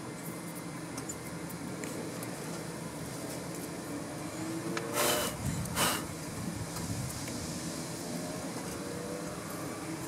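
Hands pulling packing material out of the underside of a compact washing machine: two short, sharp scrapes about five and six seconds in, over a steady low background hum.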